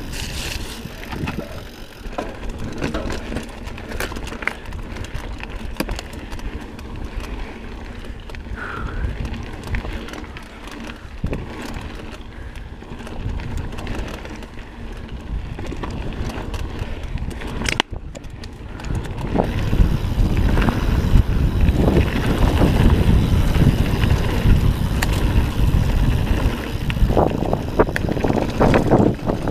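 A YT mountain bike being ridden down a dirt trail: the tyres roll over packed dirt and loose rock, with short clicks and rattles from the bike. The sound grows louder and rougher about two-thirds of the way in, as the bike crosses rockier ground.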